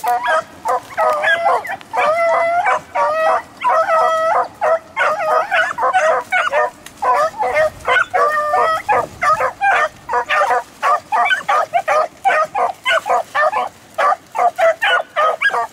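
Several beagles baying on a rabbit's scent trail: a steady run of short chop barks mixed with a few longer drawn-out bawls, the voices overlapping throughout.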